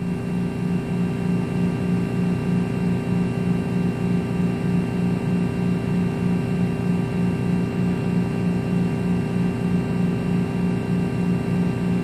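A steady machine hum with a faint, even pulsing in it and several steady higher tones above it.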